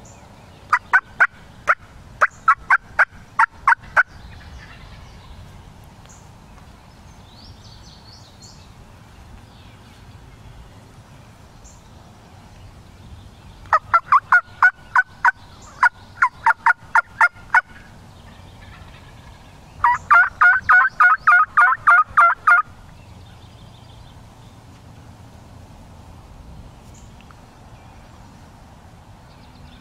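Three runs of turkey yelping, evenly spaced sharp two-pitched notes at about three to four a second. The last run, about twenty seconds in, is faster.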